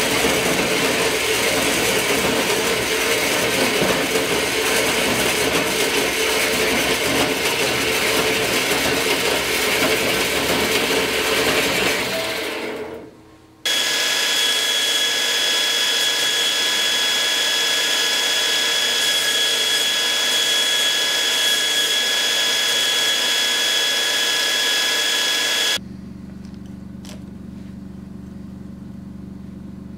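A metal-cutting bandsaw runs, cutting through a metal bar, and fades out about twelve seconds in. A belt grinder then runs with a steady high whine and stops abruptly about 26 seconds in, leaving a low hum and a faint click as a small screw clamp is tightened.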